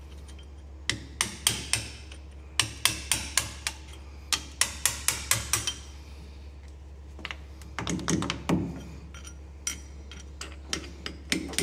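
Hand hammer tapping on a steel split-flange half of a hydraulic hose fitting on an excavator swing motor, knocking the flange loose. The strikes come in quick runs, about three a second, through the first six seconds, followed by a few scattered lighter taps.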